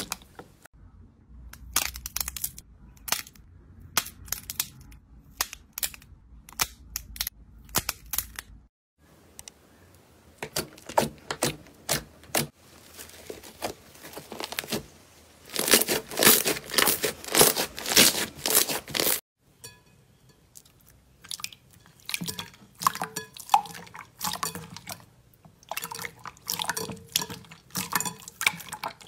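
Slime being squeezed and poked by hand: dense runs of crisp crackling clicks and sticky pops, changing character twice as different slimes are played with.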